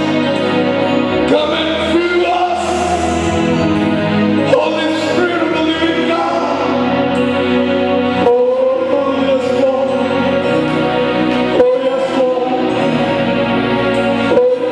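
Gospel worship music: voices singing slow, held notes over instrumental accompaniment.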